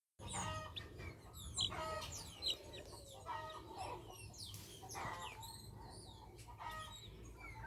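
Chickens clucking, with many quick high chirps mixed in.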